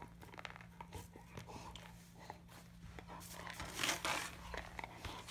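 Young American Akita chewing and gnawing a red toy ball, with many small clicks and scrapes of teeth on the ball. A brief louder rush of noise comes about four seconds in.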